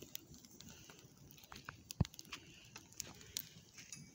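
Leaf bonfire crackling faintly, with scattered irregular sharp pops and one louder crack about two seconds in.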